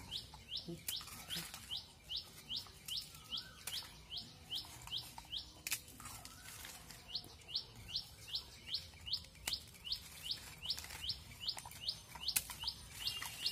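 A small bird repeating one short, high chirp, about three times a second, in a steady unbroken series.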